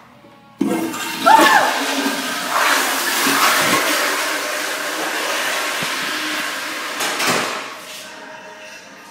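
Restroom toilet flushing: a sudden loud rush of water starts just under a second in, runs for about seven seconds and fades away near the end.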